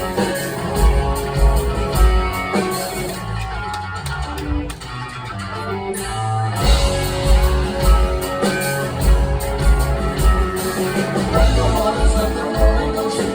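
Rock band playing live, an instrumental passage with guitar, bass and drums. The low drum-and-bass beat drops out for a couple of seconds near the middle, then the full band comes back in.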